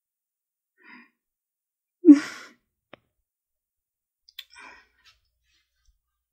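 A woman's breathy sigh with a falling pitch, about two seconds in. A single sharp click follows about a second later, then brief rustling.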